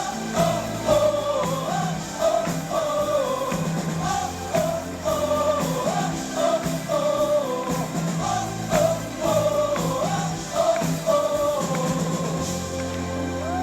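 Live gospel worship song: a band with drums and bass plays under a sung melody.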